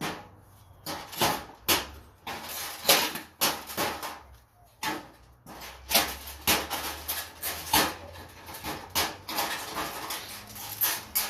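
Irregular knocks, rattles and scrapes, about two a second, of hand tools and hands working on metal fluorescent light fixtures as they are stripped for scrap.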